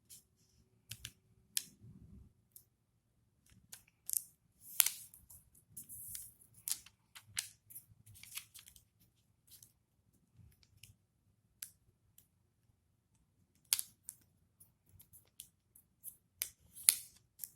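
A square of origami paper being folded and creased by hand: scattered, irregular crisp rustles and short creasing swipes of paper, with short pauses between them.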